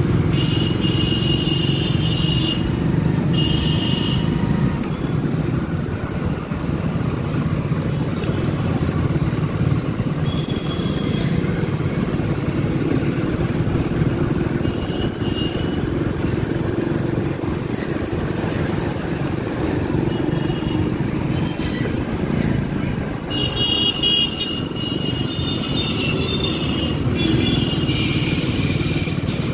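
Motorcycle engine running steadily under way in city traffic, with other vehicles' horns honking in short beeps several times, a few near the start and a cluster near the end.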